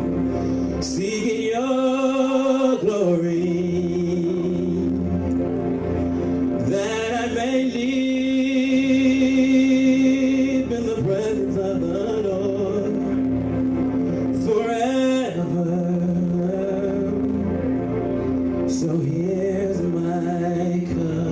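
Gospel praise-and-worship music: a male singer holds long, wavering notes, climbing higher a few times, over steady sustained chords.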